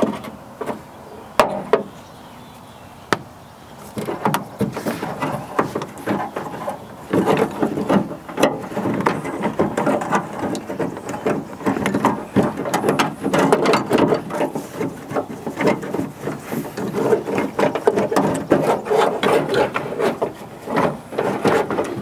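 A Honda Odyssey front door latch assembly and its cables being wiggled and worked down inside the hollow steel door: a tight fit, with plastic and metal knocking, rattling and scraping against the door's inner panel. A few sharp clicks in the first few seconds, then rattling and rubbing almost without a break from about four seconds in.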